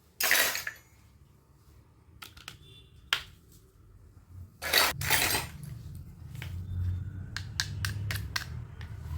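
Small plastic toy-kitchen pieces being handled, clicking and clinking against each other. Two brief noisy rustles, the loudest sounds, come just after the start and about five seconds in.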